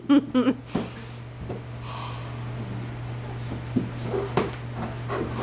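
Light knocks and bumps of a toddler's hands and bare feet on a plastic slide as he climbs up its bed, a few separate knocks in the second half, over a steady low hum.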